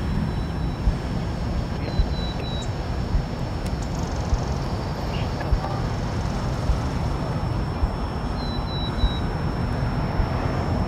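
Steady outdoor rumble of distant traffic, with a few short high bird chirps. A low thud repeats evenly about once a second.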